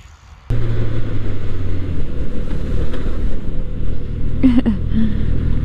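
Suzuki GSX-S 1000 motorcycle's inline-four engine running at a steady cruise, a steady low drone under wind and road noise picked up by a helmet-mounted camera; it cuts in suddenly about half a second in.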